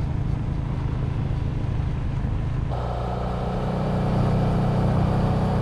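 Honda Transalp XL700V's V-twin engine running at a steady cruise, with wind and road noise. About three seconds in the sound changes abruptly to a steadier, higher-pitched drone as the recording switches to another camera.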